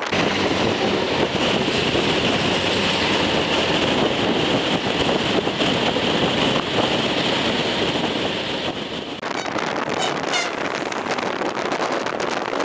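Wind rushing over a microphone held out of a moving train's window, over the steady running noise of the carriages on the track. Near the end another train passes close alongside.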